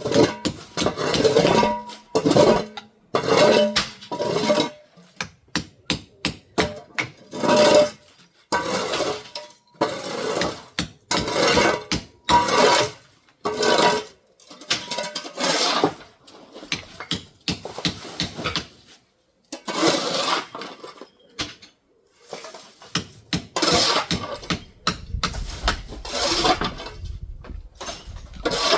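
Tiles being chipped off around a window frame: a run of irregular sharp knocks, about one a second, with the clink and clatter of breaking tile.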